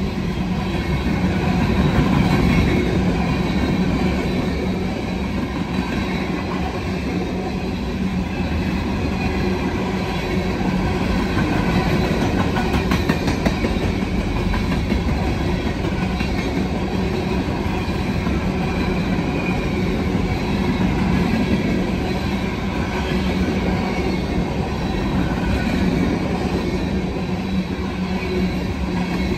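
Freight train's cars rolling past: a steady rumble and clatter of steel wheels on the rails.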